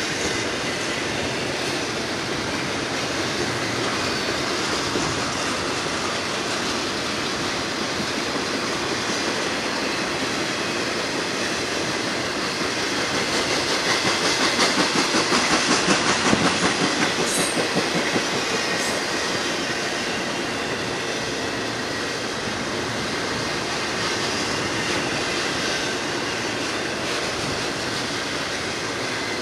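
Double-stack intermodal freight train's container well cars rolling past: a steady rumble and clatter of steel wheels on rail. It swells around the middle with a rapid clacking beat, then eases back.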